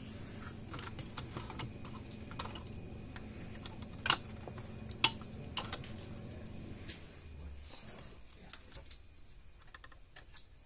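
Small clicks and knocks of hands fitting a fence energizer's circuit board and transformer back into its plastic case, with two sharper clicks about four and five seconds in.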